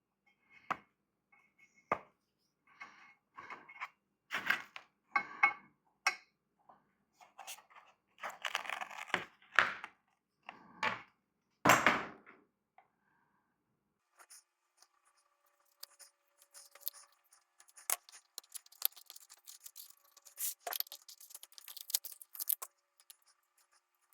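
Close-up handling noises from re-foaming a subwoofer driver and applying glue under the new foam surround: scattered short clicks and rustles for the first half, then a fine crackly scratching through most of the second half.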